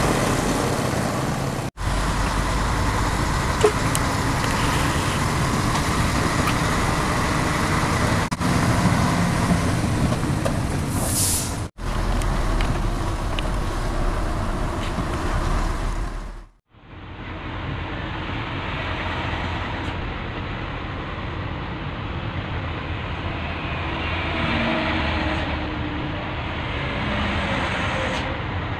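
Heavy truck engine running with road noise as the self-loader truck drives, the sound breaking off briefly three times and coming back quieter after the last break.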